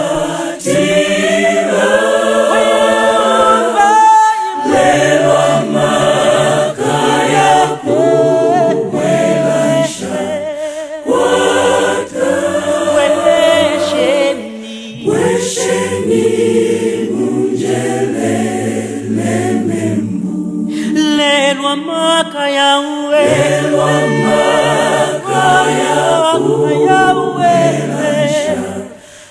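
Choir singing a gospel song in several voice parts in harmony, in phrases broken by short pauses; the singing fades out near the end.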